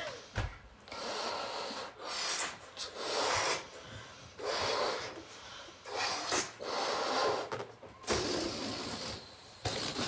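A person blowing up a rubber balloon by mouth: about five long, breathy puffs of a second or so each, with short pauses for breath between them.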